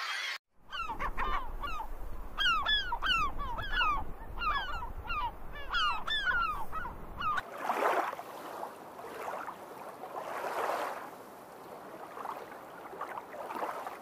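Waterbirds calling: a quick run of sharp, honk-like calls repeated two or three times a second, then, from about halfway, softer and breathier calls spaced further apart.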